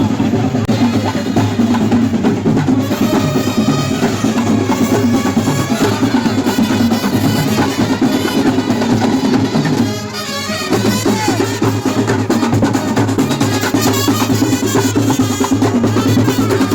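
Loud drumming with music, played steadily, with a brief drop in loudness about ten seconds in.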